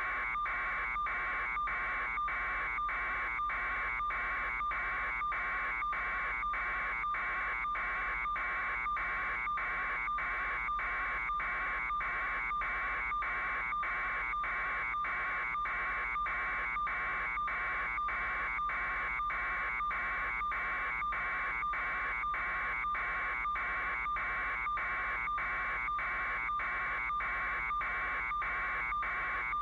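Steady buzzing noise with brief dips at an even pace, somewhat under twice a second.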